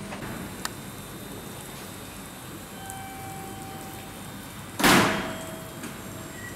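Railway platform ambience with a faint steady tone. About five seconds in comes one sudden loud hiss of air released from a train, dying away within about a second.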